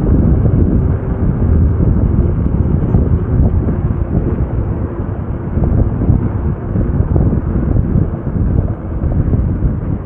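Loud, steady wind rumble buffeting an action camera's microphone while riding a KingSong S22 electric unicycle.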